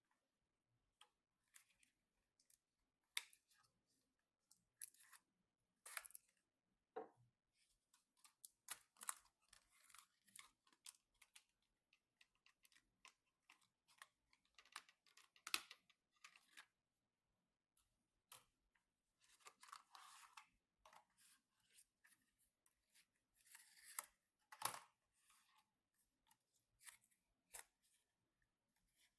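Faint, irregular clicks, taps and rustles of hands handling PC components and their packaging, with longer rustling stretches about two-thirds of the way through.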